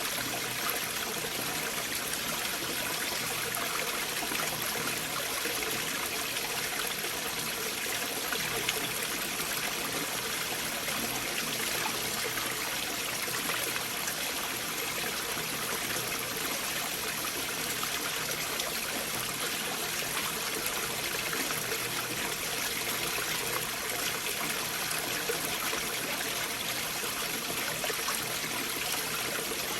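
Stream water running through gaps beneath large boulders: a steady, unbroken rush and trickle of flowing water.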